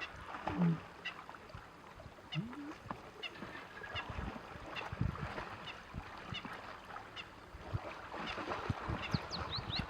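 Birds calling: a short high call repeated about twice a second, with a quick run of rising chirps near the end.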